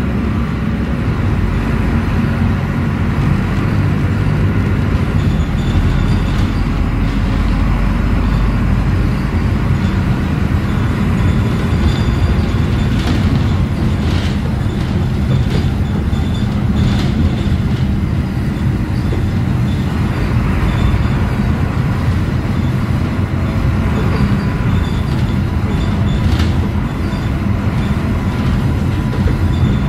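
Cabin sound of a Volvo B9SALF articulated bus under way: its Volvo D9B diesel and Voith automatic gearbox running under a steady low rumble of road noise. Brief high squeaks and rattles come a few times around the middle and again near the end.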